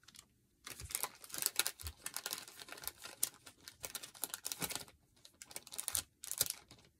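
Crinkling and rustling of a clear plastic sleeve being handled, in irregular bursts for about four seconds, then a pause and a brief bit more near the end.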